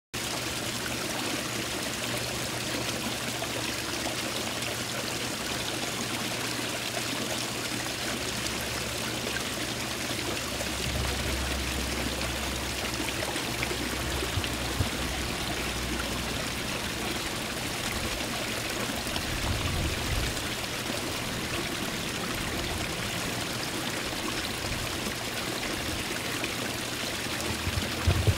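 Small garden-pond waterfall splashing steadily as water spills over stacked stones into the pond. A few brief low rumbles come through underneath it, the strongest near the end.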